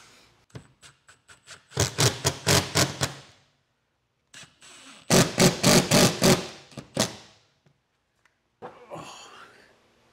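Cordless drill driving screws into the wall, in two bursts of about a second and a half, each a rapid run of pulses, with a few faint ticks before the first. A short scuffing sound comes near the end.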